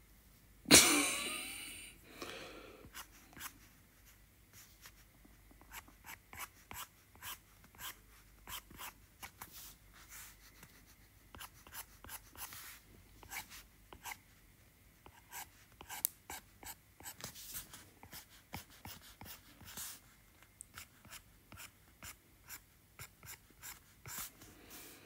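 A stylus tip tapping and scratching on an iPad Pro's glass screen while sketching, in many short, irregular ticks. About a second in there is one louder, sudden sound that fades over about a second.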